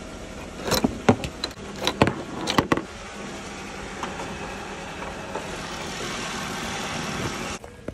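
A Jeep's hood latches being worked by hand: a quick run of sharp metal clicks and clunks in the first few seconds. After that comes a steady background noise that cuts off abruptly near the end.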